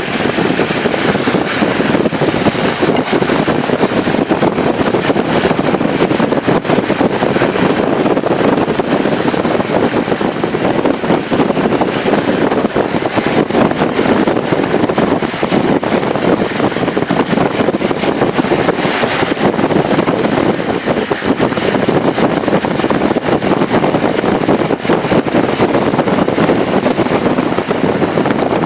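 Strong wind rushing across the microphone: a loud, steady wash of noise.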